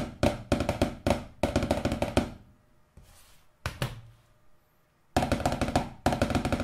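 Wooden drumsticks striking a plastic-sleeve folder laid flat on a desk as a practice pad. There are runs of quick strokes, then a quiet gap of about two seconds broken by a single hit, then another quick run near the end. The player finds this folder too soft, with little rebound, because of the slack between its sleeves and papers.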